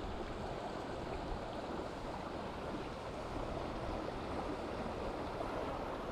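Steady rush of a river's current flowing around a small boat drifting downstream; the river is running high.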